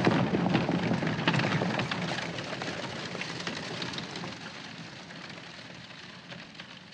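Horse-drawn carriages rolling away on a dirt road: hooves and wheels making a rough noise full of small clicks, loudest at the start and fading steadily as they go.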